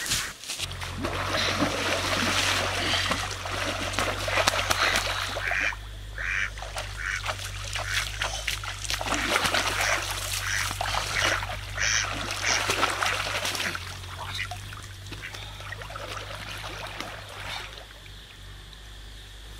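A duck quacking amid heavy, irregular water splashing as it is chased and grabbed by hand in a shallow stream. The splashing eases off and gets quieter over the last few seconds.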